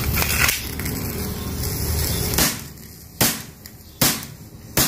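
Baikal Makarov all-steel CO2 blowback pistol replica being handled, with a stretch of rustling handling noise, then four sharp snaps from its action about 0.8 s apart as the trigger is pulled.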